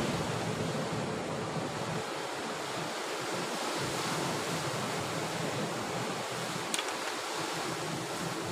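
Sea surf washing over a rocky shore: a steady rush of breaking waves, with one brief click about two-thirds of the way through.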